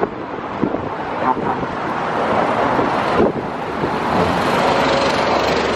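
Steady noise of road traffic passing close by: cars' tyres and engines on the bridge roadway next to the walkway, growing a little louder about four seconds in.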